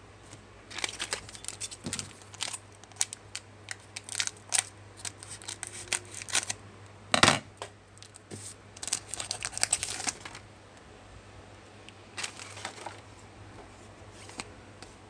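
Trading cards and a foil pack wrapper being handled: crinkling, rustling and small clicks for about ten seconds, with one sharp knock about seven seconds in. After that come only a few faint scrapes.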